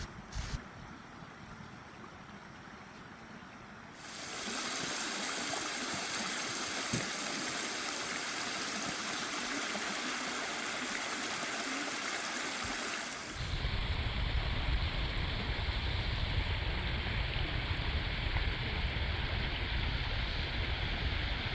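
Mountain spring water running steadily, an even rushing hiss. About four seconds in it gets louder, and a little past halfway a heavy low rumble joins it.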